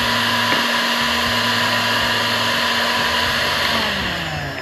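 Electric heat gun running with a steady blowing whir, then winding down near the end, its hum falling in pitch as it dies away.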